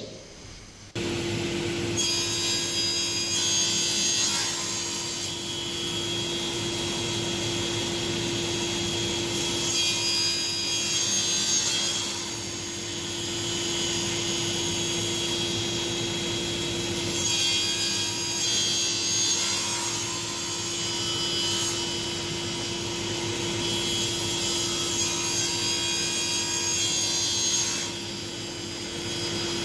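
Sliding-table panel saw running steadily and crosscutting MDF boards. Several cuts of a few seconds each rise in level over the saw's constant running note.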